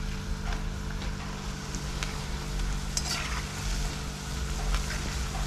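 Bhajia (gram-flour fritters) sizzling as they deep-fry in hot oil in a metal wok. A perforated slotted spoon scrapes and knocks against the pan several times.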